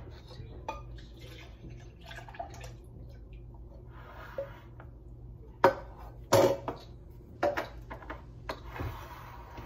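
Evaporated milk pouring from an upturned can into a glass blender jar, with a few sharp knocks and clinks, the loudest about halfway through.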